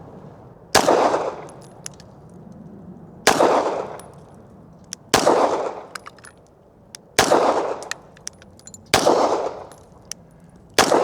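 Six slow, deliberately paced 9mm pistol shots from a Glock 17, about two seconds apart, each a sharp report with a ringing tail.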